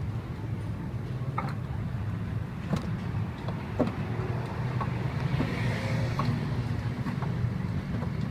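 A motor engine running steadily with a low hum, with scattered light clicks and knocks over it.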